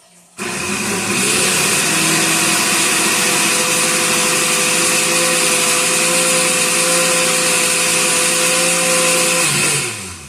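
Blender running, blending banana into rum: the motor starts abruptly, runs loud and steady for about nine seconds, then switches off and spins down with a falling whine near the end.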